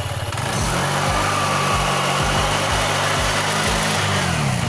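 Rusi RFI 175 scooter's single-cylinder engine, fitted with a racing clutch bell and lining, revved up about half a second in, held at steady revs, then dropping back toward idle near the end.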